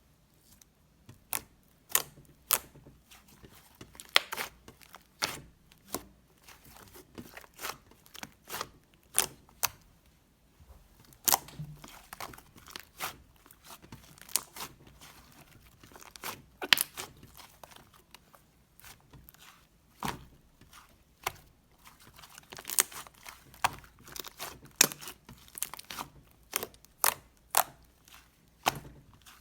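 Slime being handled, making irregular sharp pops and crackles, a few each second.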